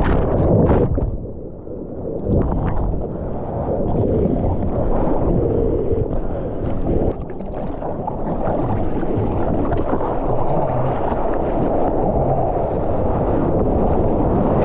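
Sea water splashing around the camera, then muffled for about a second as it goes under the whitewater. After it surfaces, a steady wash of water lapping, with wind noise on the microphone.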